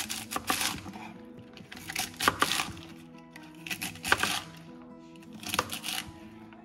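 Knife cutting crisp vegetables on a cutting board, in four short groups of sharp crunching cuts about two seconds apart, over background music.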